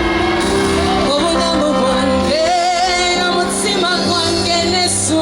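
Live band music with a singer holding long, wavering notes over sustained chords and a steady bass line.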